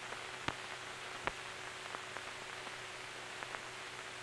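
Steady hiss and a faint steady hum of an old optical film soundtrack, with a few scattered clicks and pops.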